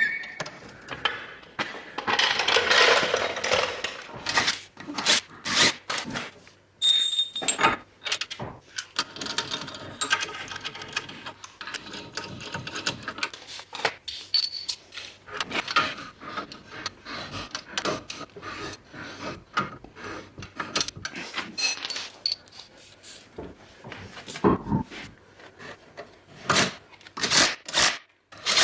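Irregular metallic clicks, clanks and scrapes of hand tools and wheel hardware being handled during work on a car's wheel hub.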